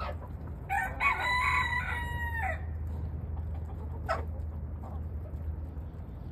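A rooster crows once, a call of about two seconds in several pitched segments that ends on a held, falling note. Short chicken squawks come just at the start and about four seconds in, over a steady low hum.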